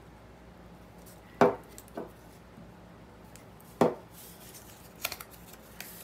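A glue stick and its cap knocked and set down on a wooden tabletop during paper crafting: several separate knocks, two of them sharper, with a few light clicks near the end.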